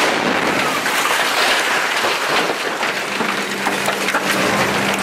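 Debris falling just after a mortar shell explosion: a dense crackling hiss of grit, dust and wooden splinters raining down. A steady low hum comes in about three seconds in.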